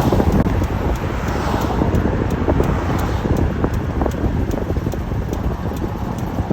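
Dodge Ram 1500 running with a regular ticking over the engine noise, the clicking problem the owner is trying to fix; wind noise on the microphone.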